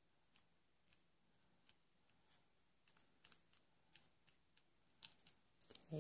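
Faint, irregular clicks of small plastic diamond-painting beads being nudged and tapped with a plastic pick-up pen in a plastic sorting tray, coming a little more often near the end.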